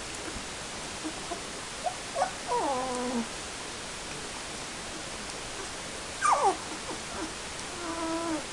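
Nineteen-day-old Airedale Terrier puppies whimpering: a few short, high squealing calls that fall in pitch, about two seconds in and again near the end, over a steady hiss.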